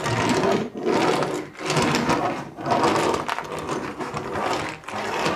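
Small plastic toy bulldozer pushed by hand over a plastic playset and loose toy rocks, scraping and rattling in repeated strokes about once a second.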